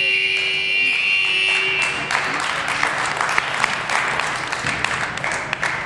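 End-of-game buzzer sounding one steady tone that cuts off about two seconds in, marking the final whistle as the clock runs out. Spectators then start clapping in the gym.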